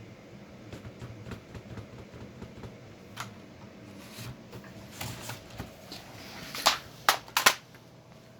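Corsair K70 RGB MK.2 mechanical keyboard rocking on an uneven base: light scattered taps and clicks, then three loud sharp knocks near the end as a corner strikes the desk. The rocking is the sign of a warped or uneven keyboard base.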